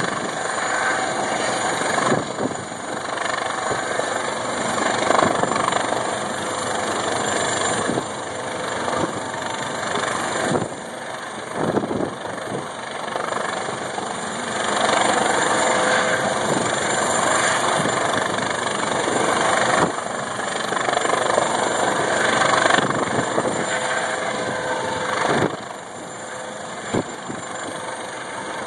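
Rescue helicopter hovering close overhead: a steady rotor and engine noise with a faint high whine, broken by a few brief knocks.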